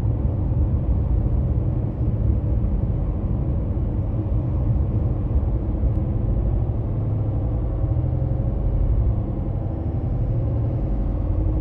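Road and engine noise of a car cruising at highway speed, heard from inside the car: a steady low rumble.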